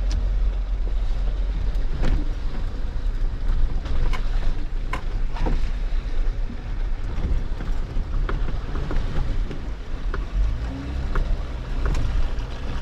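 Jeep driving slowly over bare rock: a steady low engine rumble, with scattered sharp clicks and knocks from the tyres and body on the rock.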